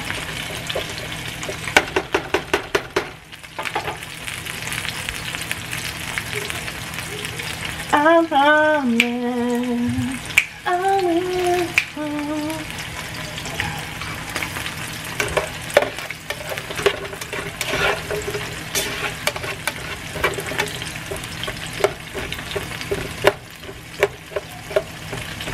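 Salmon fillet searing in oil in a nonstick skillet, with onions frying in a second pan: a steady sizzle dotted with crackling pops. A person's voice sounds briefly about eight seconds in.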